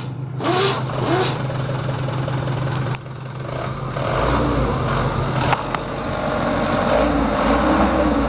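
Mitsubishi Canter 110 PS turbo-diesel engine running, then revved twice by hand on the accelerator pedal, the note rising and falling with each press. The engine is still in its stock factory tune.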